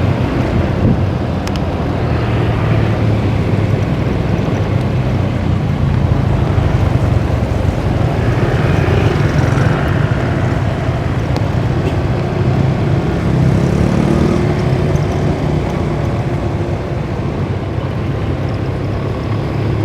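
Excavator's diesel engine running steadily while dredging, its pitch rising briefly about two-thirds of the way through as it works harder.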